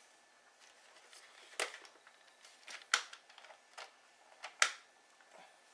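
Scattered sharp clicks and knocks of a hard plastic NERF Sledgefire blaster being handled and worked at a stiff part: three stronger clacks about one and a half, three and four and a half seconds in, with fainter clicks between.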